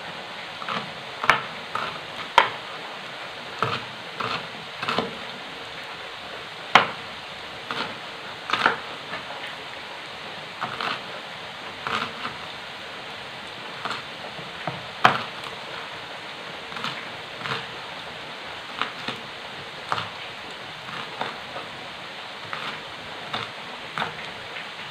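Kitchen knife slicing green chilies on a plastic cutting board, with irregular sharp knocks about one or two a second. Under it runs the steady sizzle of tempeh frying in hot oil.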